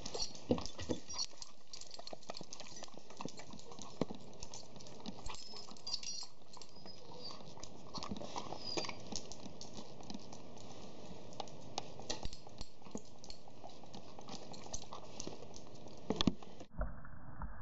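A dog's claws click and scrabble on wet concrete, with the snaps and splashes of it biting at water, over a steady hiss. The sound turns abruptly duller near the end.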